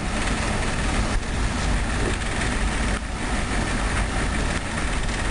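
Steady road and engine noise of a moving car heard from inside its cabin: a low rumble with an even hiss over it.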